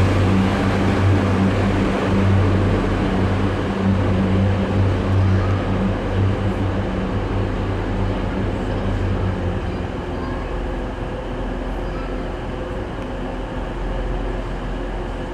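Class 142 Pacer diesel railbus pulling away, its underfloor diesel engines giving a steady low hum that fades as the train moves off. The engine hum drops out about nine or ten seconds in, leaving the echoing hubbub of the station hall.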